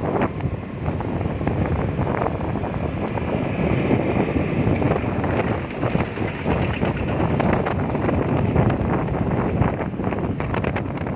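Wind buffeting the microphone: a loud, rumbling rush of noise broken by rapid crackles and gusts.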